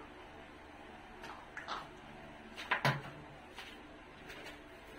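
A few light knocks and clacks of kitchen things being handled, the loudest nearly three seconds in with a dull thud under it, over a faint steady background hiss.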